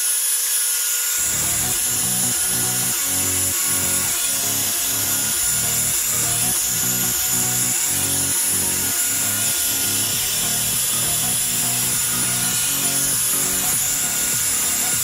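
Revlon One Step hair dryer brush running steadily, a loud rushing blow with a thin high whine. Background music with a steady beat comes in about a second in.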